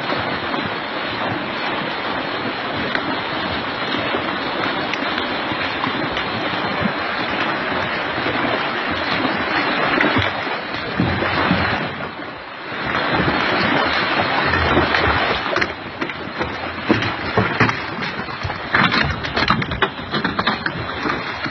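Fast-flowing floodwater rushing and splashing, with spray close by. The sound dips briefly about twelve seconds in, and the second half turns choppy with irregular splashes.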